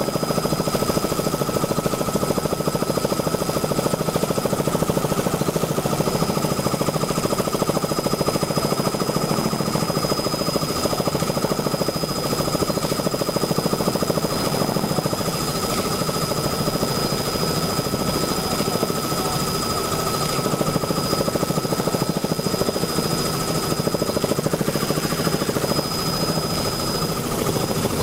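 Steady helicopter cabin noise: engine and rotor drone heard from inside the cabin, with two thin high whines held over it.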